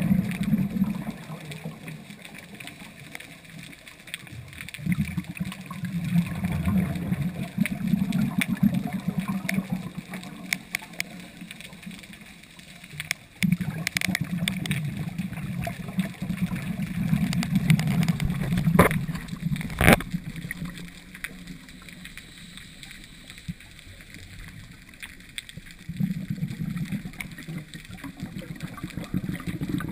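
A scuba diver's regulator breathing underwater: bursts of exhaled bubbles lasting a few seconds each, with quieter inhalations between. There are a few sharp clicks about two-thirds of the way in.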